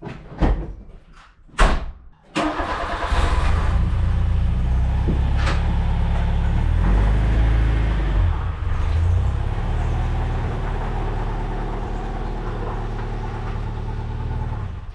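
A couple of sharp clunks, then the Mk2 VW Polo GT's petrol engine fires up about two seconds in and runs, a little louder for a few seconds before settling to a steady idle, now that it has fuel again.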